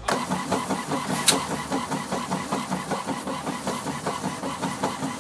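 Printer running as it prints a page: a rapid, even mechanical chatter with one sharp click about a second in.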